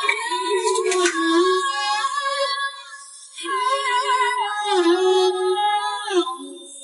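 Background music: a Chinese pop ballad with a female voice singing a melody line with vibrato, pausing briefly about three seconds in.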